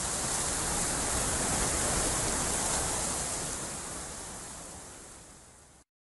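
Steady rushing, hiss-like noise with no distinct engine note or impacts. It fades over the last few seconds and cuts off abruptly near the end.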